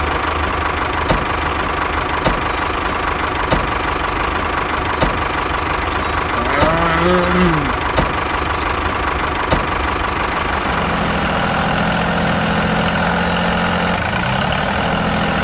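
Tractor-style engine running steadily, with a sharp knock every second or so. A brief sliding voice-like sound comes about seven seconds in, and about ten seconds in a steady low engine note joins in.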